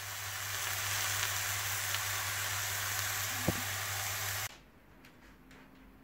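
Marinated quail sizzling steadily as it fries in a pan, with a low hum underneath and a single tap about three and a half seconds in. The sizzle cuts off suddenly about four and a half seconds in, leaving faint room tone.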